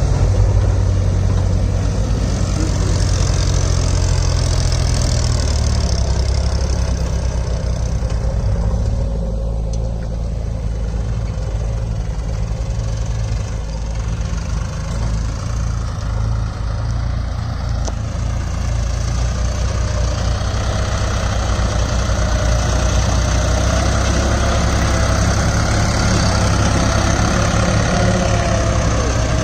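HMT 3522 tractor's diesel engine running under load as it pulls a fully loaded trolley. The engine drops back in level for a while in the middle as the tractor moves away, then grows louder again as it comes back close by.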